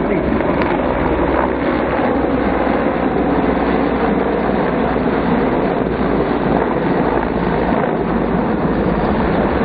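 A formation of Mil Mi-24 attack helicopters flying past, their rotors and turbine engines giving a loud, steady, heavy noise without a break.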